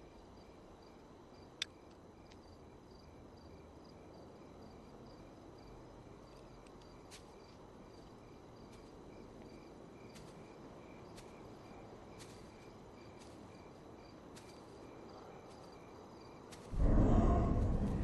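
Night ambience of crickets chirping steadily, with a few faint clicks. About seventeen seconds in, a sudden loud whoosh swells up, a film sound effect of great wings unfolding, and slowly fades.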